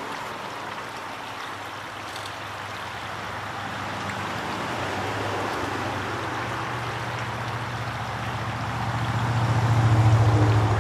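Steady rush of river water, with a low engine hum that builds from about halfway through and is loudest near the end: a passing engine.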